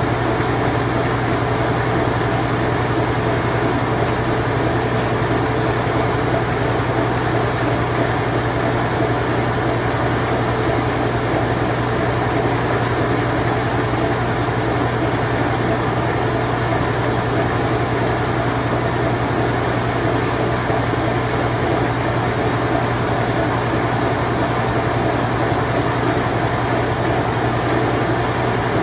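Late-1980s to early-1990s Whirlpool Imperial Clean Touch washing machine running its spin cycle: a steady, unbroken motor hum with a dense mechanical whir.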